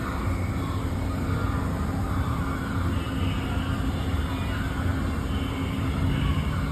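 Steady low rumbling noise with a faint hum, like machinery or a vehicle running.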